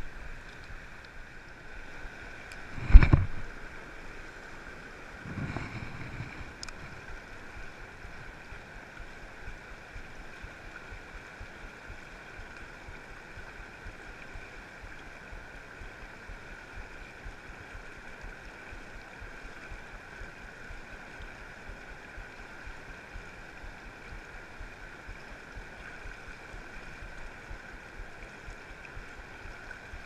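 Steady rush of fast, turbulent river water. A loud thump comes about three seconds in, and a softer one a couple of seconds later.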